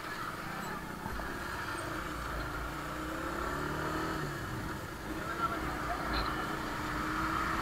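Bajaj Pulsar motorcycle engine running at low road speed, its note easing and picking up again, under steady wind and road noise on a handlebar-mounted action camera.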